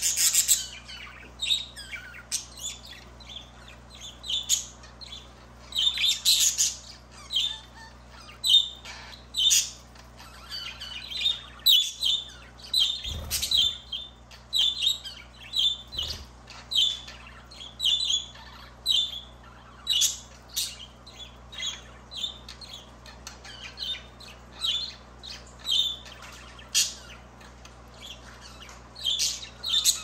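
Pet budgerigars chirping and chattering: a steady stream of short, high chirps with occasional squawks.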